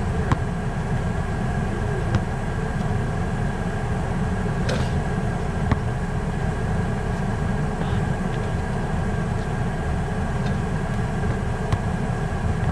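Steady low mechanical rumble with a faint hum over it. A few sharp knocks from basketball play stand out, the loudest about half a second in and again near six seconds.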